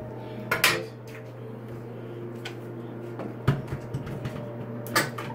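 Several sharp knocks and clatters of tools and framing lumber being handled, the loudest a little after the start and another near the end, over a steady low hum.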